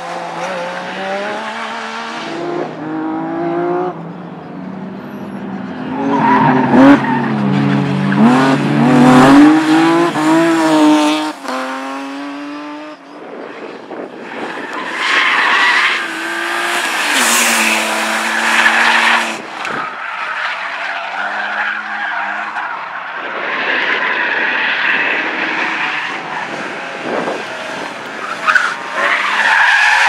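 Several cars driven hard in turn round a tight slalom course, among them a Trabant and BMW 3 Series (E36) cars: engines revving high and dropping off between turns, with tyres squealing and skidding on concrete. The loudest stretch of revving comes about a third of the way in.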